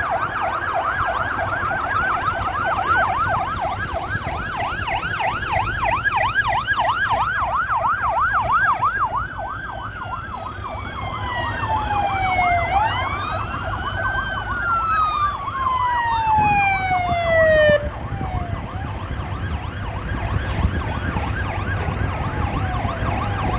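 Emergency vehicle sirens: a fast yelp that changes about nine seconds in to a slow wail, falling, rising and falling again, with the fast yelp coming back faintly near the end, over a low rumble.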